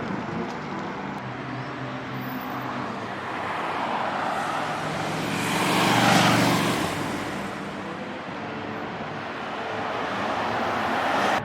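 Street traffic, with one vehicle passing close by. It grows louder to a peak about six seconds in and then fades, and another vehicle approaches near the end.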